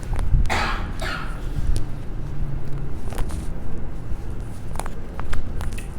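A patient's sharp breathy exhale during a chiropractic adjustment, about half a second in, followed by a few short sharp clicks over a low steady rumble.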